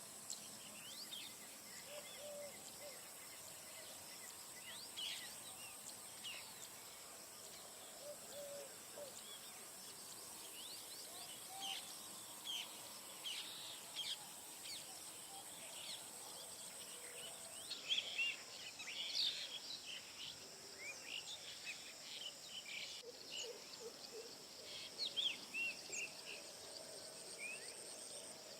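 Chorus of many birds chirping and calling in short, quick notes, thickening about two-thirds of the way through, over a steady high insect drone that drops out partway.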